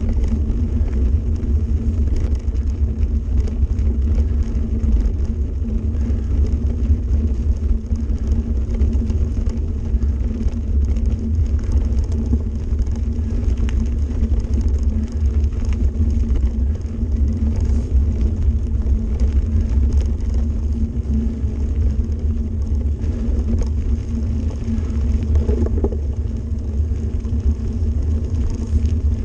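Mountain bike rolling along a gravel forest road, heard from a camera riding on the bike: a steady low rumble of tyres on gravel and the bike's shaking.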